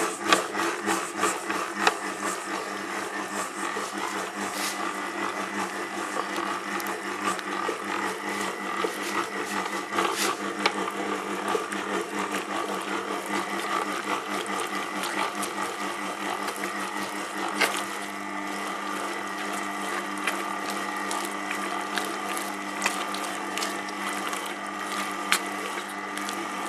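Electric stand mixer running steadily as its dough hook kneads croissant dough in a steel bowl, a constant motor hum with frequent small clicks and knocks.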